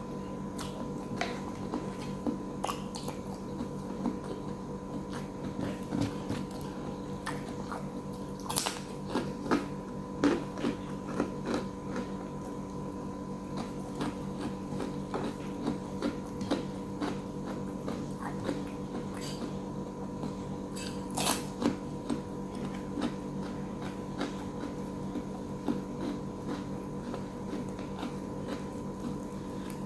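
A person chewing and eating close to the microphone: wet mouth sounds and irregular short crunches and clicks, a few louder ones in clusters, over a steady electrical-sounding hum.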